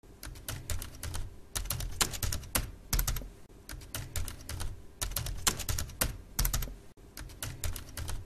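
Fast typing on a computer keyboard: uneven runs of sharp key clicks.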